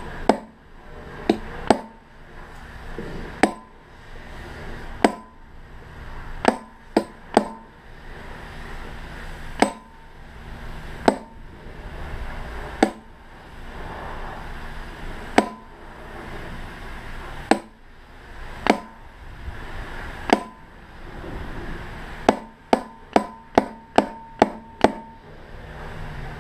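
Hammer striking a steel punch set in the slots of a large electric motor's stator, driving out the copper windings: sharp metallic blows with a short ring, spaced a second or two apart, then a quick run of about seven blows near the end.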